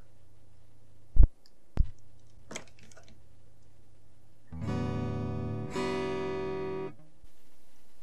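Two sharp thumps a little over a second in as the DC adapter plug goes into a homemade guitar effect pedal, then an electric guitar played through the pedal, two notes each ringing about a second. A low steady hum runs underneath, which comes from the recording setup and not from the pedal: powered from the low-noise linear adapter, the pedal adds no hum.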